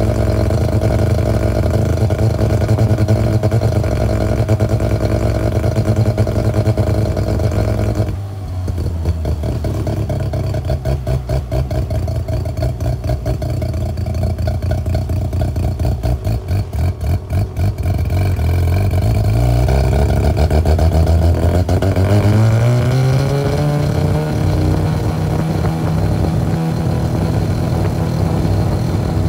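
Engine of a homebuilt open-wheeled roadster running, heard from the seat. It holds a steady note, drops sharply about eight seconds in to a lower, pulsing beat for some ten seconds, then rises in pitch as it picks up speed and settles at a steady higher note.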